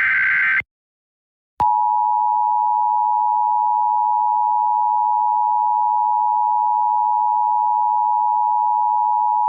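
Emergency Alert System signalling. The tail of a SAME digital header data burst ends just under a second in. After a brief pause, the EAS two-tone attention signal starts about one and a half seconds in and holds at one steady pitch pair.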